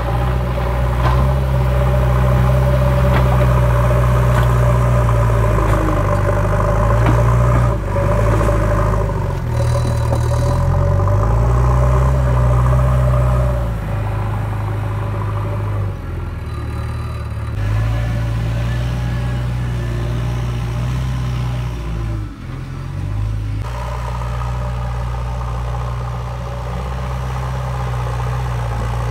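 JCB 3DX backhoe loader's diesel engine running while it pushes and levels soil with its front bucket. The engine note shifts up and down in pitch and loudness as the machine works.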